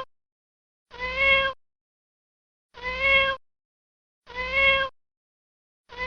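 A domestic cat's meow sound effect, the same recorded meow played over and over about every one and a half seconds.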